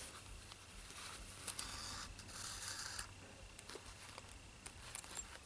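Faint rustling and scraping of crocheted fabric and a zipper being handled as a needle and thread are pulled through a stitch, mostly in the first three seconds, with a few light clicks after.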